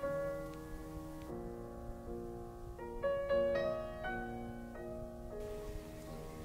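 Soft background piano music: a slow melody of single notes that ring on and overlap.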